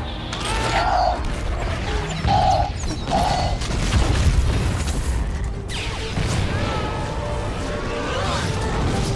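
Action-film style soundtrack: music mixed with booms, crashes and mechanical clanking over a continuous low rumble.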